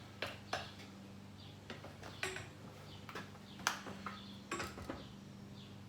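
Irregular light metal clinks and taps, about eight in all, as tools and small tractor parts are handled and set down, over a steady low hum.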